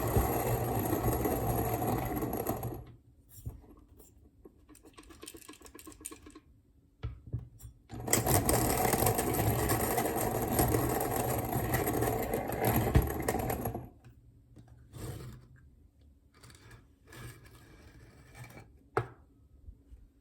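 Kalita hand coffee mill grinding beans: two bouts of steady cranking with the crunch of beans being crushed, the first stopping about three seconds in and the second running from about eight seconds to fourteen. Between and after the bouts there are faint clicks and rattles, and one sharp knock near the end.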